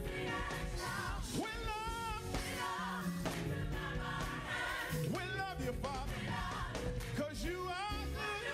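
Live gospel music: a lead singer and backing vocalists singing with wavering runs over a band with bass and drums.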